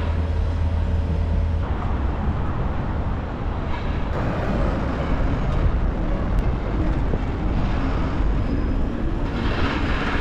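Busy town-centre road traffic: a steady wash of vehicles running and passing at a junction. A low steady engine hum from a nearby idling vehicle drops away a couple of seconds in.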